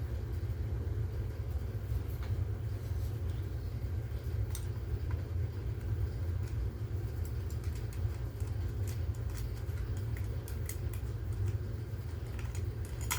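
Steady low rumble of background noise, with faint scattered clicks and taps from handling, thickening in the second half, and one sharper click near the end.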